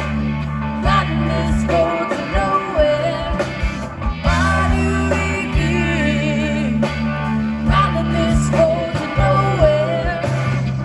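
A live blues band playing a slow blues: electric guitar with bent notes, bass, drums and keyboard, with a woman singing.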